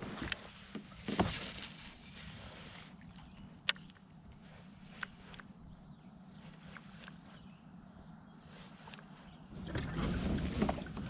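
Small boat on calm water: a few sharp clicks and knocks, the loudest a single crack a little under four seconds in, over a faint steady high whine. A low rumble swells in near the end.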